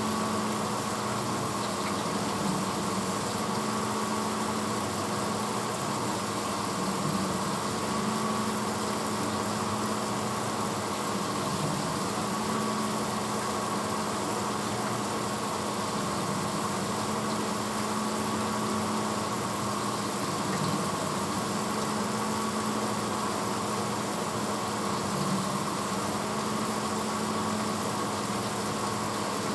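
1986 Hotpoint Potwasher dishwasher running mid-cycle: a steady motor hum over an even rushing noise, unchanging throughout.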